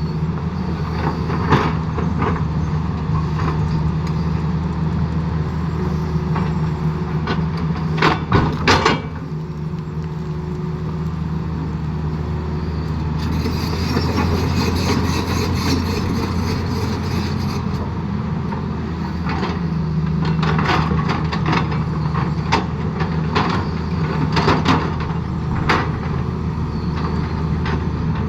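Excavator's diesel engine running steadily under load, with irregular metallic clanks and knocks from the machine working, thickest about eight seconds in and again in the last third.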